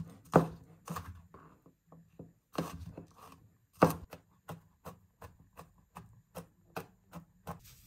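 Chef's knife chopping garlic cloves on a plastic cutting board: a few loud, spaced cuts, then a quicker, lighter rhythm of about four to five chops a second as the garlic is minced.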